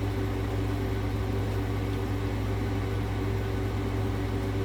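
RV air conditioner running with a steady, even hum.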